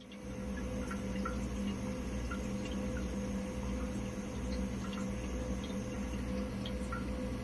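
Floating dual ultrasonic mist-maker disc unit and its small fan running in a bucket of water: a steady electric hum with a low pulsing throb, and scattered small drips and gurgles of water.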